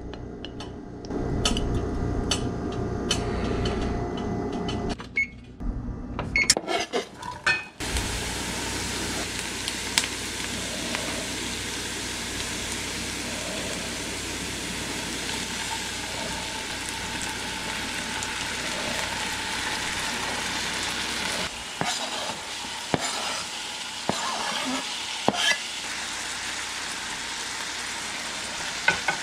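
Diced onion and vegetables sizzling steadily in hot olive oil in a nonstick frying pan, with scattered knocks and scrapes of a wooden spoon stirring them. The sizzle sets in about eight seconds in, after a stretch of lower hum and a few clicks.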